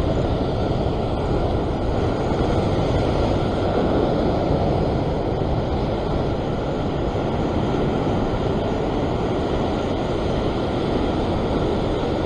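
Steady rush of ocean surf breaking and washing around sea rocks, mixed with wind noise.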